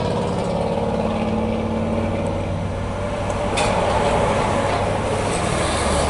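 2008 Chevy Equinox engine idling steadily, the engine a mechanic says has a little misfire and is logging a current crankshaft position sensor fault. A single short click about halfway through.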